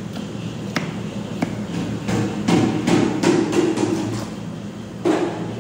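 Kitchen knife chopping peeled cassava (tapioca) root into small pieces on a wooden block: irregular knocks of the blade cutting through onto the wood, with a quick run of strokes about two seconds in. A steady low hum underneath.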